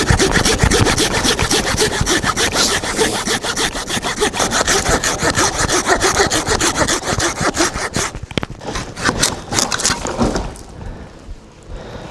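Hand saw cutting through wood in a steady rhythm of back-and-forth strokes, stopping about ten seconds in.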